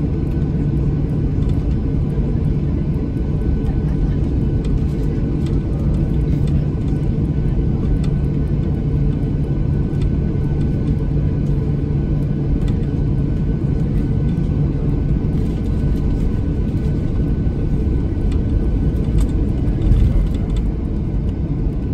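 Cabin noise inside a Boeing 737-800 taxiing, its CFM56-7B26 turbofans running at low taxi thrust as a steady rumble. A steady low hum drops away about two-thirds of the way through, and there is a low bump near the end.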